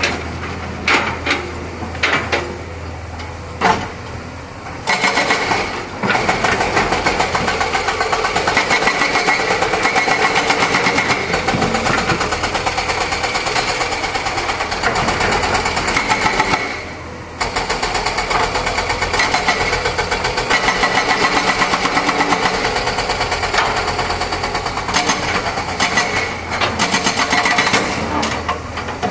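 Excavator's diesel engine working under load with a fast, even beat. It starts quieter with a few sharp knocks, rises to full power about five seconds in, and eases off briefly a little past the middle.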